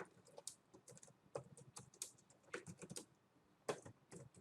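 Faint computer keyboard typing: irregular, scattered keystrokes.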